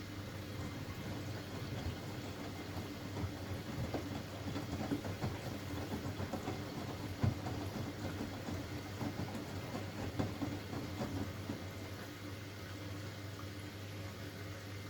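Hoover Axi 9kg front-loading washing machine in its rinse: water splashing and running in the drum over a steady low hum from the machine.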